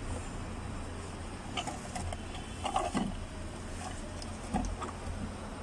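Scattered light knocks, clicks and scrapes of a plastic fuel pump module being worked up out of the fuel tank through its access opening, over a low steady hum.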